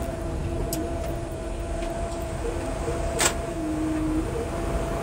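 Steady cockpit noise of a parked jet airliner: a low rumble with a steady hum from its systems and fans. A single sharp click sounds about three seconds in.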